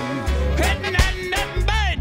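Reggae-tinged rock song playing: a heavy bass line and drum hits under a wavering melody line.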